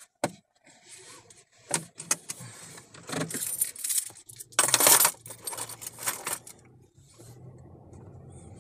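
A run of sharp clicks, clinks and rustling inside a car, loudest about halfway through, settling near the end into the steady low hum of the car's running engine.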